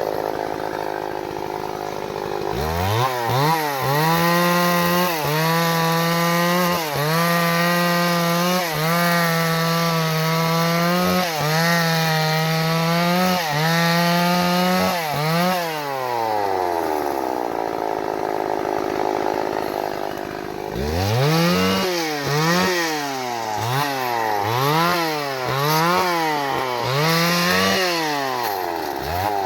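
Two-stroke chainsaw engine revved up from idle to full throttle and held there for about twelve seconds with brief dips, as it would be while cutting acacia wood. It drops back to idle, then from about 21 seconds is revved up and down in quick, repeated blips.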